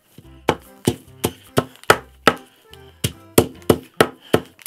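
Old wooden meat tenderizer pounding flowers through a sheet of paper on a glass-topped table. About a dozen sharp knocks come roughly three a second, with a short pause around the middle.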